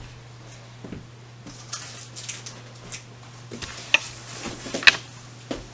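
Scattered light knocks, clicks and rustles of objects being handled and set down, the sharpest about four and five seconds in, over a steady low hum.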